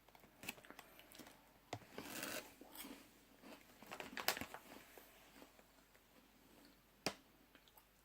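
Faint handling of a snack packet and crunching of a puffed corn snack being eaten: scattered crinkles and sharp clicks, with a longer rustle about two seconds in.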